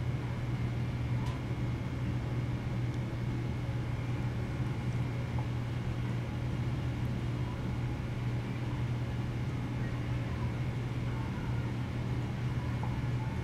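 Steady low hum with an even hiss, unchanging throughout, with no distinct events.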